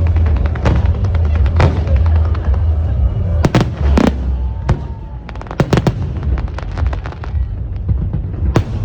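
Aerial fireworks bursting: a run of sharp bangs several times over a few seconds, with dense crackling between them over a heavy, continuous low rumble.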